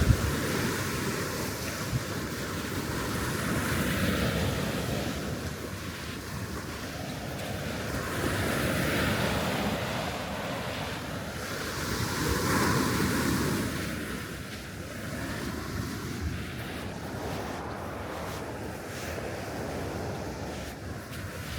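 East Sea surf breaking on the beach, the wash swelling and falling every few seconds, with wind buffeting the microphone. The breakers are quieter in the last third.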